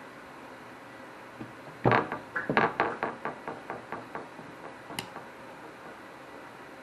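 Conventional trolling reel clicking as it is turned by hand, about five clicks a second for a couple of seconds, fading as it slows, then one sharp click.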